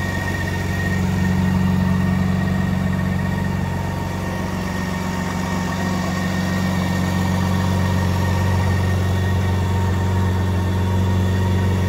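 BMW K1600GT SE's inline-six engine idling steadily, a smooth even hum with a faint high whine above it.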